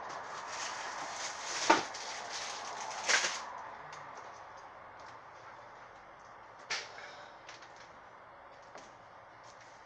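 Belongings being rummaged through by hand on a cluttered bed: rustling with sharp knocks and clatters, the loudest nearly two seconds in and another about three seconds in, then quieter with a few light clicks and a single knock at about seven seconds.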